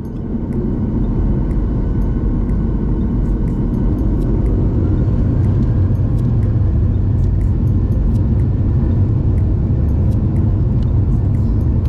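Boeing 737 jet engines as a steady, loud, low rumble that swells up over the first second and then holds, with scattered faint clicks over it.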